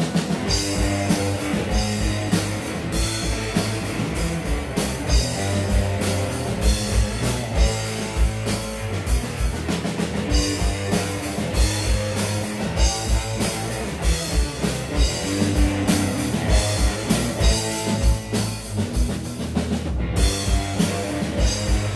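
Live rock band playing: distorted electric guitars over a driving drum-kit beat. About twenty seconds in the band stops for an instant and then crashes back in.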